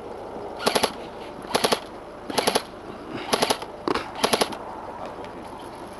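Jing Gong Type 89 airsoft electric rifle firing about five short three-round bursts, a little under a second apart.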